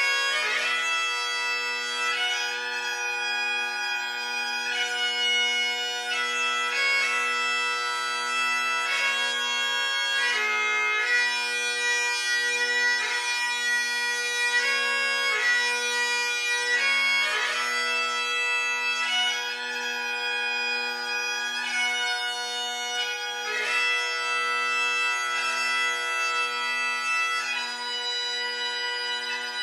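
Great Highland bagpipe playing a melody over its steady drones.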